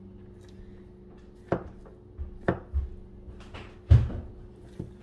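A few sharp knocks and clunks at uneven intervals, the loudest about four seconds in, over a steady low hum.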